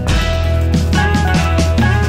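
Background music with guitar, bass and drums and a steady beat.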